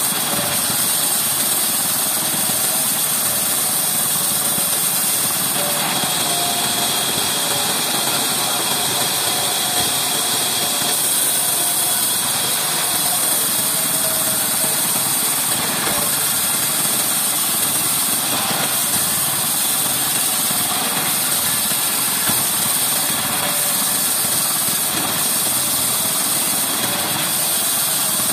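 Large vertical band saw running steadily while ripping lengthwise through a thick, weathered timber beam salvaged from an old house.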